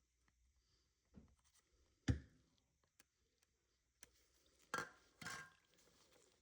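Scattered knocks and clinks of objects being handled: one sharp knock about two seconds in, then two clattering clinks about a second apart near the end, with faint ticks between.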